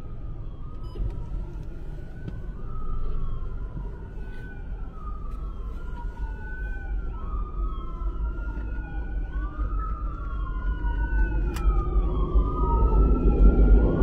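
Emergency vehicle siren wailing, its pitch rising and falling about every second and a half, growing steadily louder as it approaches.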